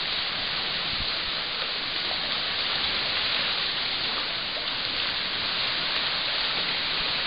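Steady rush of splashing water from swimmers churning a pool.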